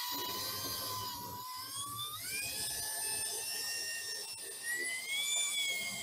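Electric drill on its slow setting driving a 1-1/8-inch hole saw into a countertop. The motor's whine steps up in pitch about two seconds in and again near five seconds, over the rasp of the saw teeth cutting.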